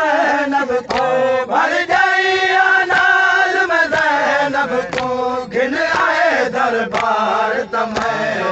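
Male voice chanting a noha, a Shia mourning lament, in long drawn-out sung phrases.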